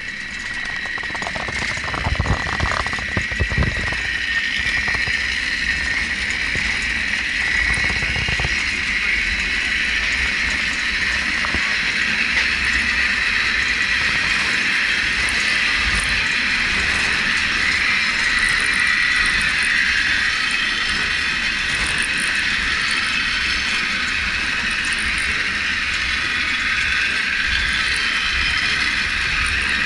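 Cliff railway car running down its steep track: a steady, fairly loud rolling whir and rattle from the car and its rails, with a few knocks in the first few seconds as it sets off.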